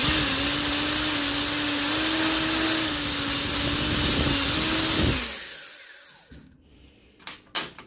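Electric drill running steadily, widening a drilled hole so a tight bushing will fit. After about five seconds it is switched off and spins down, falling in pitch. A couple of sharp clicks come near the end.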